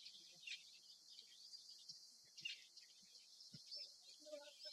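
Faint, overlapping high-pitched chirping of small birds, with a slightly louder call about half a second in and another about two and a half seconds in.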